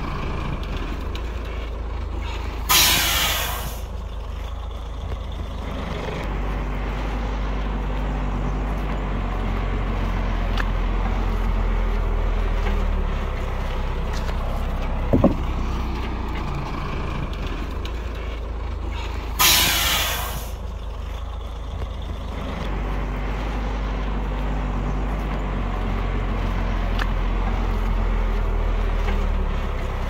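Heavy diesel machinery engines running steadily, with a dump truck's air brake hissing for about a second twice, early and again about two-thirds through. A single sharp knock comes about halfway.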